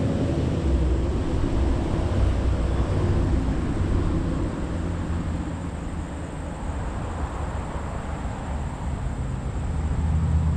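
Steady low engine rumble with some wind noise, growing louder about a second in, easing off past the middle, and rising again near the end.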